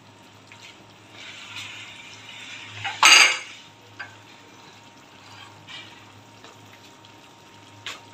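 Wooden spatula stirring a wet mutton curry in a steel pot, a rising wet hiss, then one loud sharp clatter of the spatula on the pot about three seconds in, with a few light ticks afterwards. A faint low hum runs underneath.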